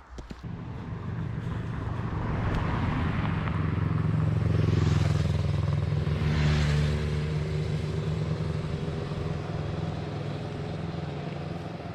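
A motor vehicle passing on a road: its engine and tyre noise build up, peak about halfway through, then fade while a low engine hum carries on.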